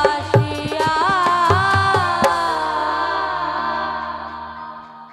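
Live Baul folk band playing the closing bars of a song: hand drums keep a steady beat and stop on a final hit about two seconds in, then a held keyboard chord rings on and fades out.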